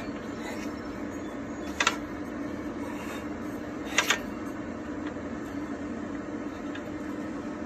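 Small engine being turned over slowly by hand: two short mechanical clicks about two seconds apart over a steady low hum.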